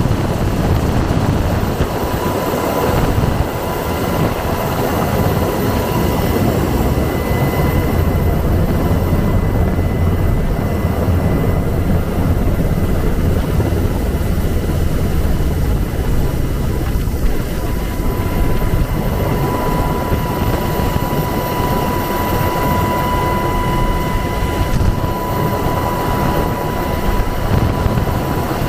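UH-60 Black Hawk helicopter hovering low, heard loud and steady from the open cabin door: heavy rotor and engine noise with a steady high whine on top.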